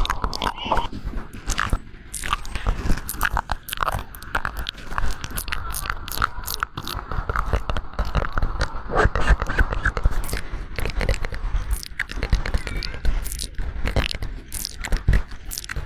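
Close-up crunching and crackling, a dense, irregular run of sharp clicks like something being bitten or chewed.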